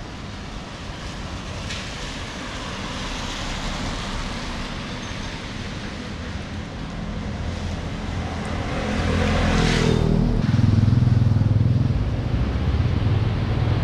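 Steady hiss of light rain and water on a wet street. About nine seconds in, a motor vehicle passes on the wet road, its tyre hiss and engine noise swelling with a sliding pitch, followed by a steady low engine hum.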